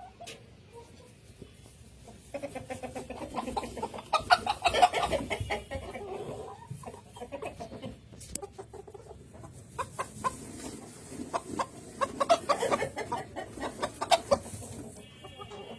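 Silver Cochin chickens clucking: rapid runs of short clucks from several birds, starting about two seconds in, easing off midway and picking up again in the second half.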